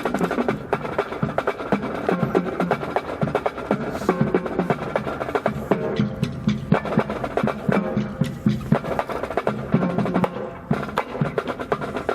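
Marching band playing a drum-driven piece, with brisk snare and percussion strokes under sustained wind notes.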